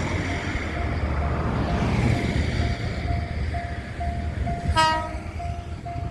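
A level-crossing alarm pulses a steady tone about twice a second while a JR train rumbles past. About five seconds in, the train gives one short horn blast.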